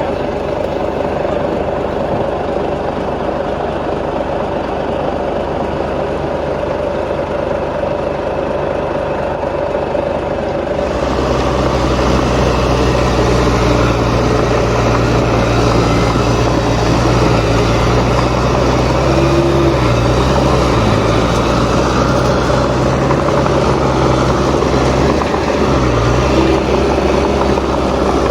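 Heavy diesel engines of earthmoving machines running steadily. About eleven seconds in the sound grows louder and deeper, with a strong low engine hum.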